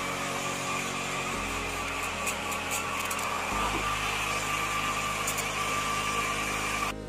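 Hand-held hair dryer running steadily on a wet puppy's coat: a rush of air with a steady motor whine. It cuts off abruptly near the end.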